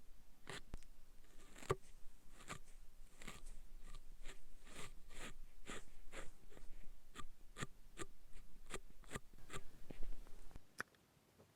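Close-miked makeup tools working on skin: a run of soft taps and brushing strokes, about two a second, which stop about ten and a half seconds in.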